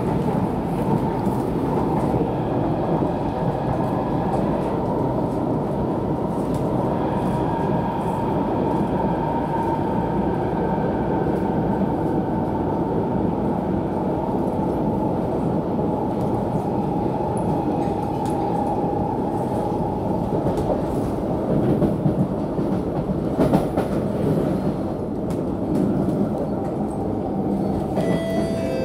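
Inside a Kawasaki–Nippon Sharyo C751B metro train running between stations: a steady rumble of wheels on track with a faint whine that slowly drifts down in pitch. Two sharp knocks come about 22 and 23 seconds in, and a set of higher whining tones starts near the end.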